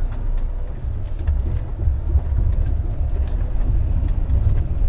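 Heavy goods lorry's diesel engine running with a steady low rumble, heard from inside the cab as the truck drives slowly into floodwater covering the road. A few faint knocks and rattles come through.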